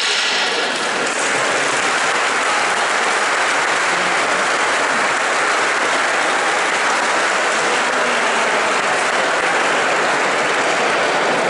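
Audience applauding steadily at the end of a stick dance.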